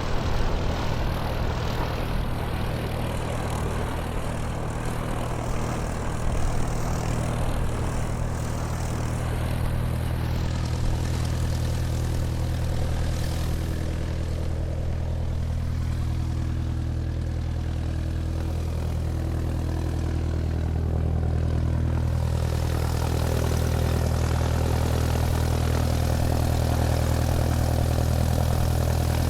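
Airplane taxiing on the ground, its engine running steadily with a deep hum, growing a little louder over the last several seconds.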